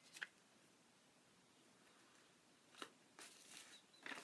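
Near silence, with a couple of faint ticks and a soft rustle of paper being handled near the end.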